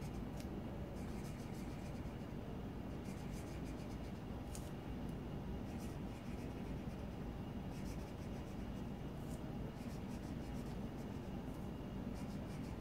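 Felt-tip marker scratching on paper as small circles are drawn, in short runs of quick strokes with brief pauses between.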